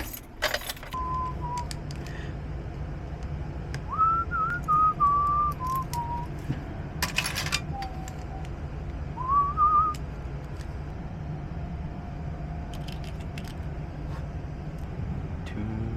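A person whistling a few short, wavering phrases of a tune over a steady low hum, with a brief clatter about seven seconds in.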